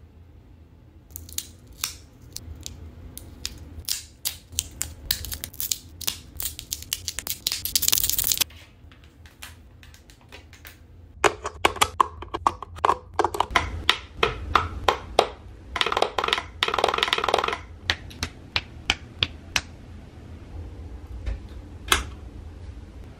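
Handling noise: crinkling and clicking as a coiled Apple Lightning cable is unwrapped from its cable wraps, then plastic USB wall adapters clacking as they are pushed into a power strip's sockets. One sharp click near the end as the power strip's switch is pressed.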